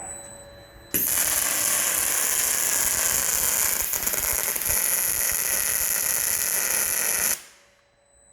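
MIG/MAG welding arc on a robotic welding cell: the arc strikes abruptly about a second in, runs as a steady, bright hiss for about six seconds, then cuts off sharply as the weld ends.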